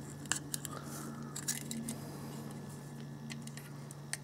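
Scattered light plastic clicks and taps from fingers handling and prying at the plastic housing halves of a Wi-Fi range extender, over a faint steady low hum.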